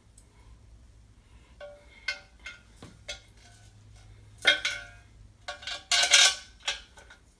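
Small metal hardware for a clothes rack, such as washers, nuts and bolts, clinking and clattering as it is handled, with a few sharp clinks that ring briefly. The loudest clatters come about four and a half and six seconds in.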